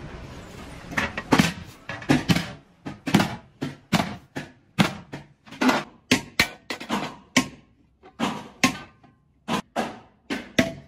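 Hand hammer striking a sheet-metal cooking pot as it is beaten into shape, a quick series of sharp metallic blows, about two to three a second with short pauses, some leaving a brief ring.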